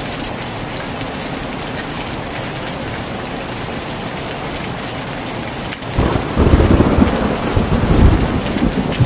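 Heavy rain falling steadily. About six seconds in, a loud rumble of thunder breaks in and keeps rolling.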